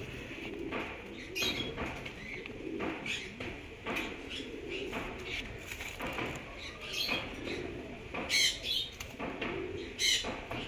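Pigeons cooing in a low, wavering murmur, broken by several short, sharper sounds, the loudest about eight and ten seconds in.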